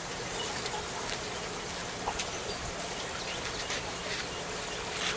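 Outdoor background noise in a garden: a steady hiss with a faint steady hum under it and a few light scattered ticks.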